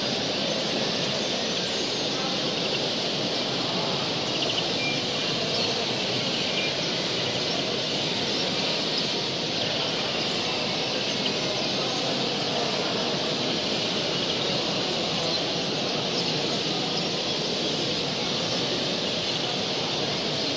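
Steady, dense din of a hall full of caged songbirds, many chirping and calling at once and blending into a continuous wash.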